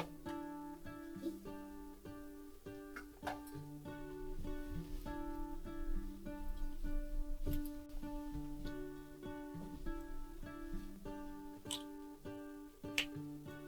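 Background music: a plucked acoustic guitar playing a steady picked melody, with a few light clicks.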